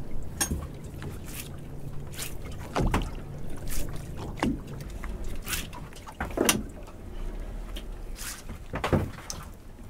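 Wet lobster-pot rope being hauled up hand over hand over the side of a small boat: irregular rustling, slapping knocks roughly once a second as each length comes aboard.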